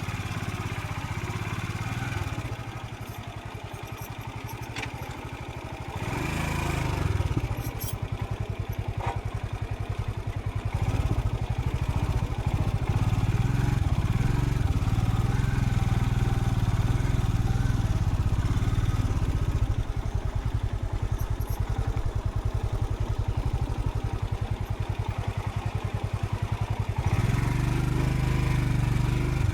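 Royal Enfield Scram 440's single-cylinder engine running as the motorcycle rides along, its note changing with the throttle. It is quieter for the first few seconds, picks up about six seconds in and pulls louder from about ten seconds. It eases briefly around twenty seconds and opens up again near the end.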